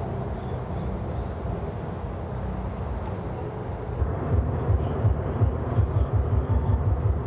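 Outdoor ambience: a steady low rumble; from about four seconds in, wind buffets the microphone in irregular low thumps.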